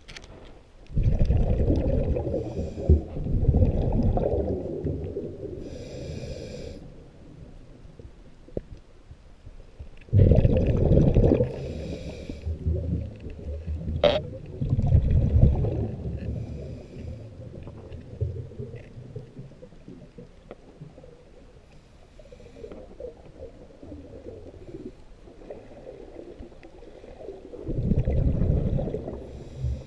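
A scuba diver breathing underwater, heard through the camera housing: long rumbling bursts of exhaled bubbles every several seconds, with quieter hissy stretches between.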